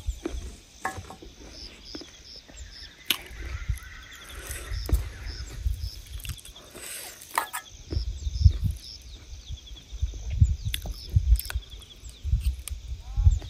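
Rural outdoor ambience: a short high chirp repeated about three times a second in several runs, over irregular low rumbles and scattered clicks and knocks.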